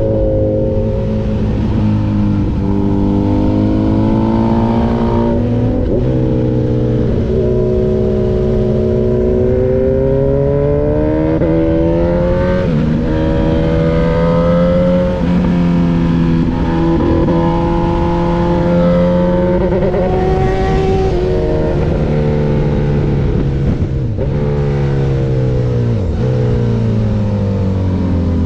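Honda motorcycle engine running hard on track, its note rising and falling again and again as it accelerates, shifts and slows. The owner reports the bike misfiring and losing power, which he suspects comes from its Power Commander V fuel controller.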